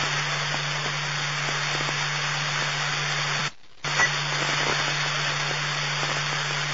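Police scanner radio static: a steady hiss with a low hum on an open channel. It drops out briefly about three and a half seconds in and comes back with a click.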